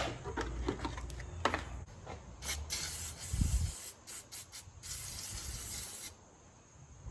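Light clicks and rubbing of hands and parts at work, then two bursts of hissing spray, the second longer, about a second and a half.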